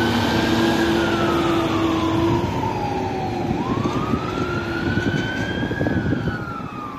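Fire truck siren in wail mode: a slow rising and falling tone, about two cycles, over the truck's engine and tyre noise, growing fainter as the truck drives away.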